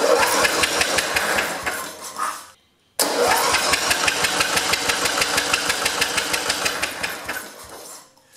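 Electric starter cranking a Briggs & Stratton 18 hp opposed-twin engine in two long bursts with a short break about two and a half seconds in; the engine turns over evenly without catching, because the ignition coil is giving no spark.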